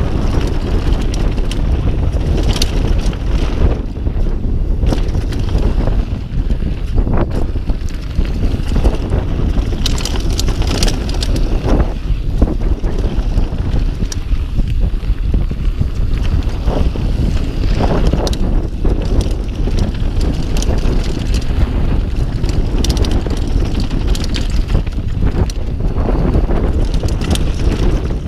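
Mountain bike running down a dirt trail: wind buffeting the camera microphone over the rumble of tyres on dirt and gravel, with frequent sharp clacks and rattles from the bike over bumps.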